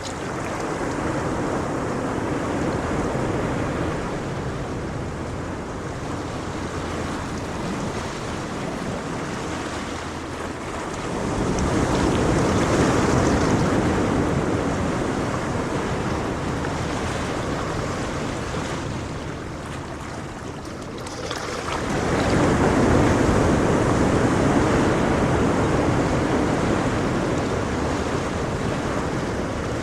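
Gentle ocean waves washing ashore in a steady hiss, swelling with a fresh wave about 11 seconds in and again about 21 seconds in, each easing off slowly.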